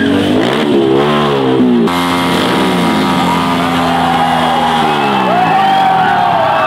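TVS Apache RTR stunt motorcycle's single-cylinder engine revved up and down a couple of times, then running steadily. Whoops and shouts from a crowd rise over it in the second half.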